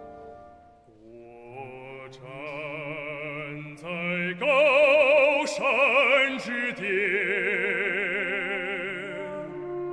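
Symphony orchestra playing a slow, broad passage with wide vibrato. It drops quiet about a second in, then builds to its loudest about four and a half seconds in.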